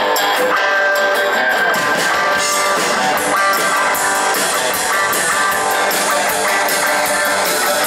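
Live rock band playing the instrumental intro of a song: strummed electric and acoustic guitars over drums.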